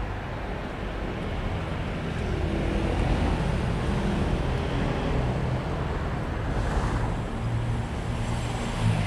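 Steady low rumble of road traffic, getting somewhat louder about two seconds in.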